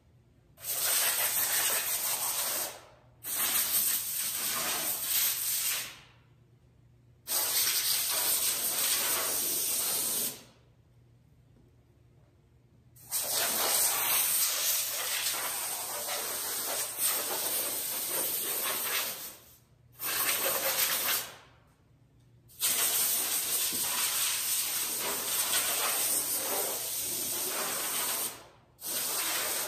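Compressed-air blow gun blowing sanding dust off a car frame. It comes in about seven bursts of loud hiss, each one to six seconds long, with short pauses between them.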